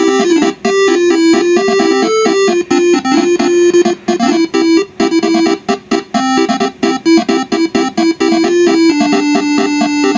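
Twelve-note telolet basuri bus horn set, its horn trumpets sounding a fast melody of short, quick notes with a few held ones. The notes switch in quick steps, as the electronic controller fires one horn after another.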